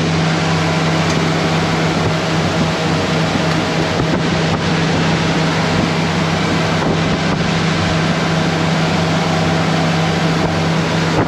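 A boat under way at steady speed: a steady engine drone with a low hum, over the rush of water and wind buffeting the microphone.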